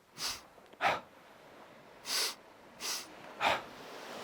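A person demonstrating a double breath: two short inhales in a row followed by an exhale that lets the breath drop, about one breath every 0.6 s. The first group ends about a second in, and a full group of inhale, inhale, exhale follows from about two seconds.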